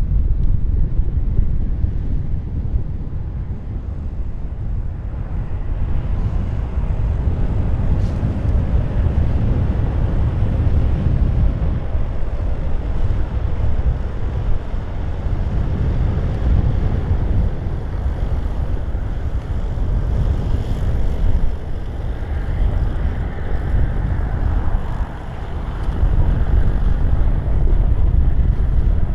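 Strong gusty wind buffeting the microphone, a constant low rumble that swells and eases, with a higher hiss coming up about two-thirds of the way through.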